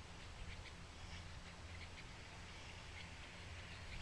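Quiet outdoor ambience: a low steady rumble with scattered faint bird chirps.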